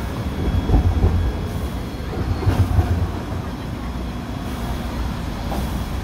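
1912 Polson No. 2 steam locomotive sitting at idle: a steady low rumble under escaping steam hiss, with a few uneven heavier thumps, the loudest a little under a second in and around two and a half seconds in.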